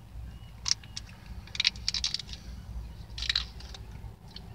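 Plastic and foil packaging crinkling and crackling in several short bursts as the lid is peeled off a small ranch dipping-sauce cup.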